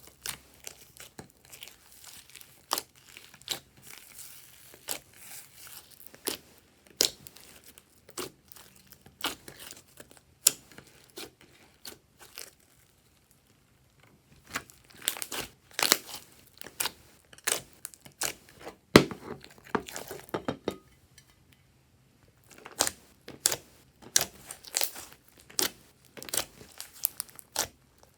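Hands squishing and stretching glossy slime: irregular sticky clicks, pops and crackles, broken by two short pauses.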